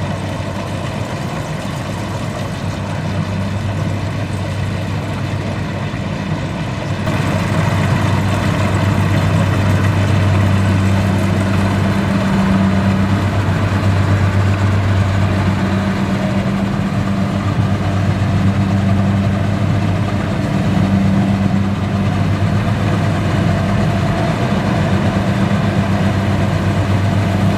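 Kubota DC-70 combine harvester running steadily with a constant engine hum. About seven seconds in it turns louder and brighter, with more hiss in the upper range.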